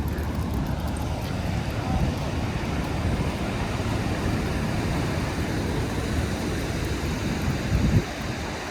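Steady rumbling outdoor noise of sea surf and wind buffeting the microphone, with two brief thumps, the louder one near the end.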